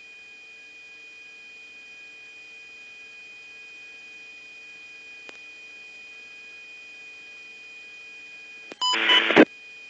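Steady electronic tones and faint hiss on an aviation radio channel between transmissions. There is a faint click a little past halfway and a short, loud burst of radio noise near the end.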